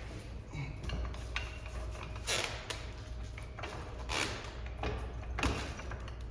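Floor jack being set under a car's frame and worked: about five short, uneven metallic scrapes and clanks over a steady low hum.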